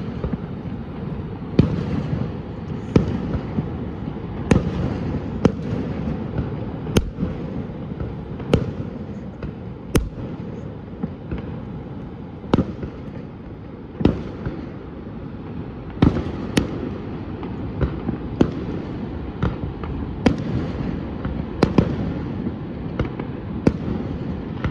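Fireworks bursting: sharp, single bangs every one to two seconds, over a steady low background rumble.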